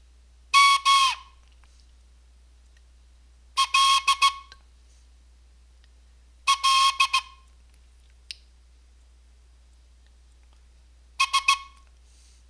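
A whistle sounding Morse code: four groups of short blasts at one steady high pitch, a few seconds apart, each group a Morse character made of a few quick dots and dashes.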